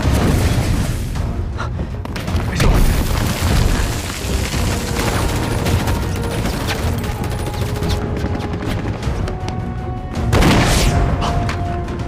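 Explosions go off repeatedly over dramatic film score music, with a large blast about ten seconds in.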